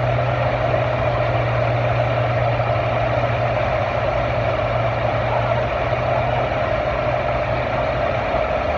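Farm tractor engine running steadily under load as it pulls the sled, a low even drone that weakens near the end.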